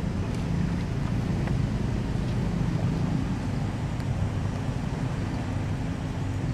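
Steady low rumble with a steady low hum, like a motor or engine running.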